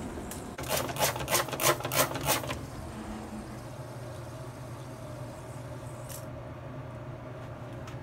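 Trigger spray bottle of bleach cleaner squirted into a bathroom sink in a quick series of about eight short hissing sprays over two seconds.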